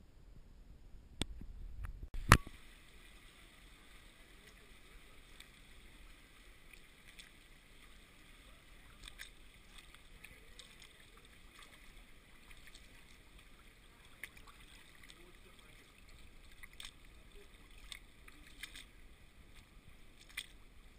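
Shallow creek water flowing over rock right at the camera, a faint steady trickle with scattered small ticks and splashes. A sharp knock comes about two seconds in.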